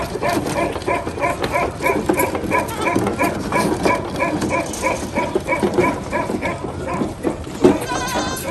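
An animal's short, high calls, repeating evenly about four times a second over a rough din of animal noise, and stopping about seven seconds in.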